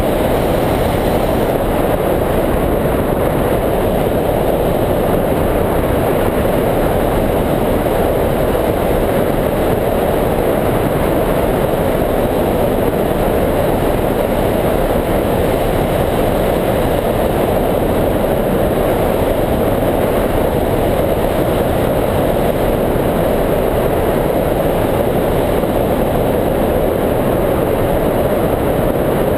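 Wind rushing over the microphone of a camera mounted on a hang glider's wing in flight: a loud, steady, low-pitched rush of air without a break.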